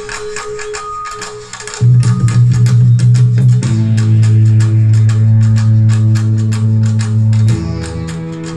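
Live band music: guitar and keyboard over a steady beat of hand drums. A loud, sustained low bass note comes in about two seconds in and changes pitch twice.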